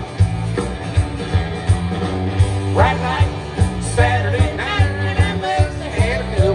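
Live country-rock band playing: drums with a steady kick-drum beat, bass and electric guitars, with a lead line that bends sharply up in pitch and then wavers, with no words sung.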